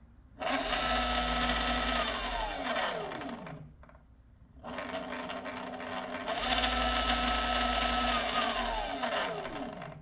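Bafang BBSHD mid-drive e-bike motor run up twice, each time running steadily for a couple of seconds and then spinning down with a falling whine. It makes a weird rattle from inside the motor, which the owner believes comes from the needle clutch bearing in the nylon reduction gear.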